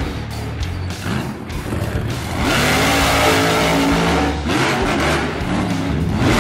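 A Losi LMT RC monster truck's electric motor whines, rising and falling in pitch as it revs, with tyres scrabbling on dirt. Background music with a steady bass plays underneath.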